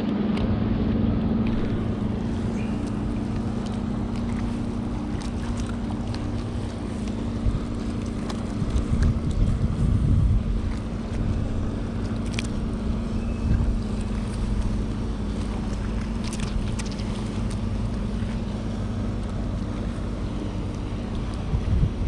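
Boat engine running at a steady low hum, with wind buffeting the microphone. A few sharp clicks come about halfway through and near the end.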